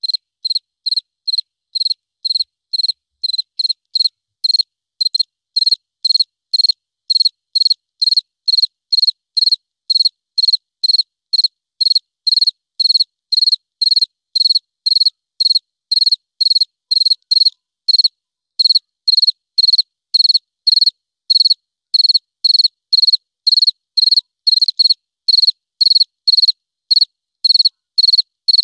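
Cricket chirping sound effect on an otherwise silent track: evenly spaced high chirps, about two a second, with no other sound behind them.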